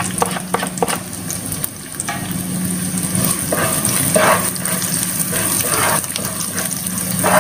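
Diced onion sizzling in hot oil in a nonstick pan, being sautéed to brown lightly, with a spatula scraping and stirring it every second or so.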